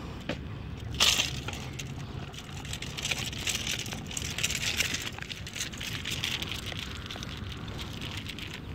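Crackling rustle of shirt fabric rubbing against the camera's microphone, with a sharp scrape about a second in and a louder stretch of rustling in the middle.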